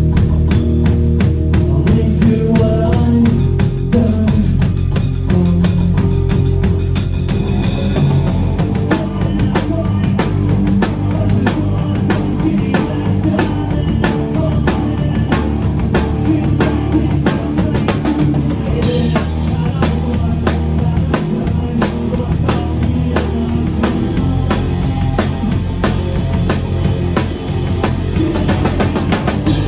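Live rock band playing a song: a drum kit keeps a steady beat under electric guitar and bass.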